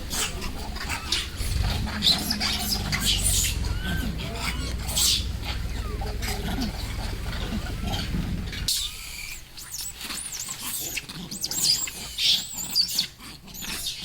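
Monkey shrieking in a string of short, high, squealing calls, over a low rumble that cuts off about two-thirds of the way through.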